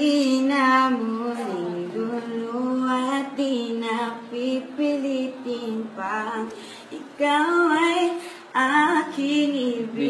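A voice singing a melody in phrases of long held, wavering notes, with no clear words.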